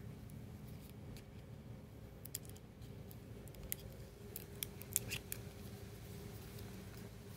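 Paper photo-card sleeves being handled and pulled open by hand: faint rustling with a scatter of short crisp snaps of card and paper, clustered in the middle.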